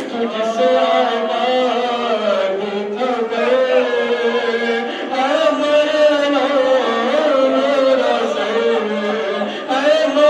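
Several men's voices in a slow, drawn-out mourning lament, chanted or sung with long held notes that slide up and down and overlap one another. It comes from the congregation's lament after the recital of Abbas's martyrdom.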